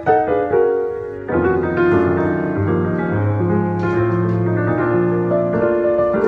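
Piano playing sustained chords over a slowly moving bass line.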